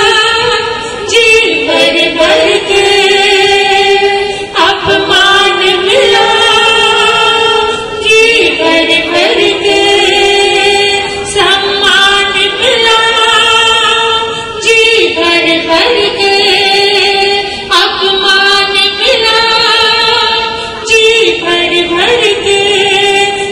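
Women's voices singing a Hindi devotional bhajan in slow, long-held notes that step from one pitch to the next every few seconds, with no accompaniment.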